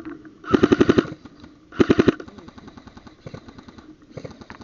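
Airsoft gun firing two short full-auto bursts of rapid clicking shots, the second burst shorter, followed by a few faint scattered clicks.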